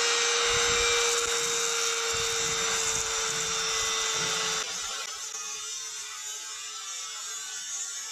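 Handheld rotary tool with a sanding drum running at high speed, a steady high whine, cutting off sharply a little past halfway through.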